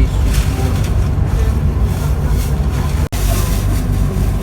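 Steady low rumble of a train, with a brief sudden break about three seconds in.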